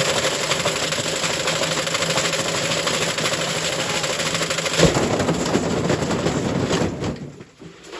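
Candy washing machine running its drum with half a breeze block inside, making a loud, continuous clattering and banging racket, with a heavier bang about five seconds in. The noise dies away near the end.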